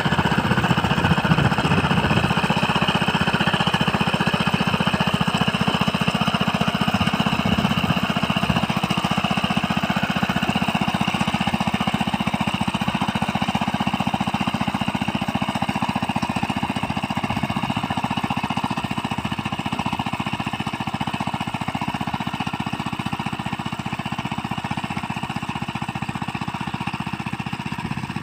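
Small engine of a mini rice-field tiller running steadily with a fast, even chatter, growing slightly quieter toward the end.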